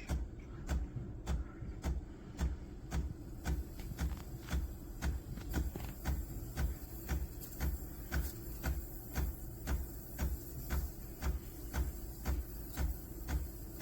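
Espresso machine water pump pulsing in a steady rhythm, a low thump with a click about one and a half to two times a second.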